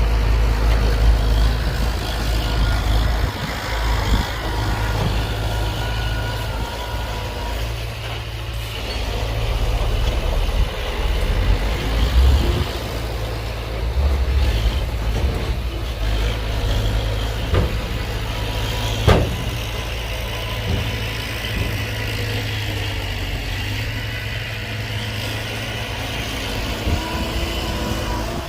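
Heavy diesel engines of a dump truck and bulldozer running steadily with a deep rumble, with a couple of sharp knocks about two-thirds of the way through.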